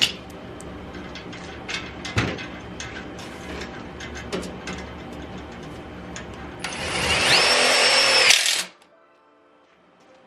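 A power tool running steadily with scattered clicks. About two-thirds of the way in it gives a much louder, higher whine for about two seconds, then stops.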